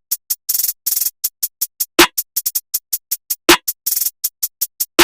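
Rap drum-machine beat: rapid hi-hat ticks with a few quick rolls, and a deep kick drum about every second and a half, with no melody over it.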